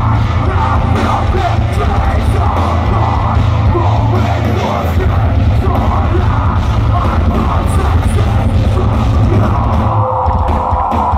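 Metalcore band playing live on an outdoor festival stage, loud and unbroken: guitars, drums and a vocalist at the microphone.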